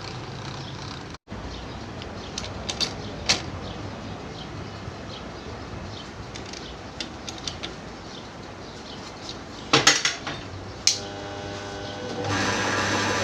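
Metal tools and parts clinking and clanking against each other, scattered sharp taps with a louder cluster about ten seconds in, over a steady background noise.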